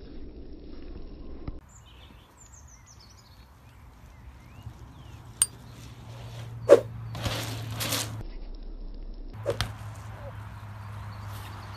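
A bike riding an asphalt pump track: a few sharp clanks and knocks from the bike about 5½ and 7 seconds in and again near 9½, the loudest at 7 seconds, followed by the hiss of tyres rolling. Birds chirp faintly between about 2 and 4 seconds in.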